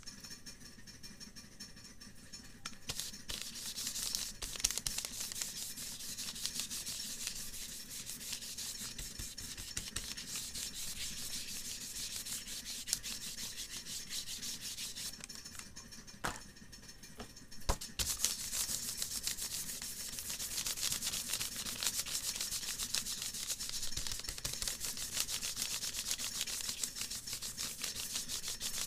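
A stick of red pastel rubbed rapidly back and forth over a sheet of paper, making a steady dry scratching. About halfway through it stops for a few seconds, with a couple of light knocks, then starts again.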